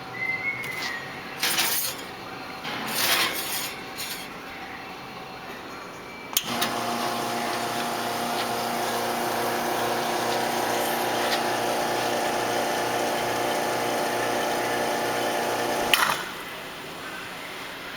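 Brasilia Portofino two-group espresso machine brewing a shot: its pump starts suddenly and runs with a steady hum for about ten seconds, then cuts off with a click. Before it, a few clicks and knocks of the machine being handled.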